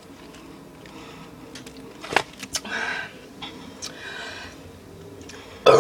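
A girl's loud burp bursts out right at the very end. Before it there are only faint room sounds, a few sharp clicks and a short breathy noise about two seconds in.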